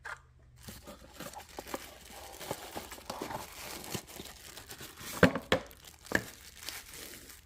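Product packaging being opened by hand: continuous crinkling and tearing with many small clicks, and a few louder sharp rustles a little after five seconds and around six seconds.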